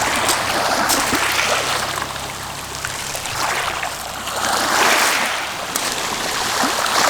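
Ocean waves washing onto the shore, swelling and ebbing, loudest about five seconds in. A low steady hum runs under the first few seconds.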